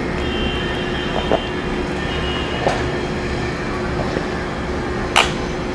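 Sips taken from a paper cup, with three short gulps, the last the loudest, over a steady rumbling background noise with a faint hum.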